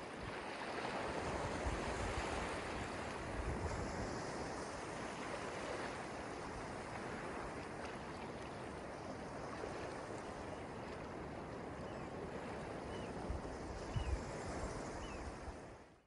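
Small ocean waves washing in over sand and around rocks at the shoreline: a steady, continuous surf wash. Near the end there are three faint, short high chirps, and the sound fades out at the very end.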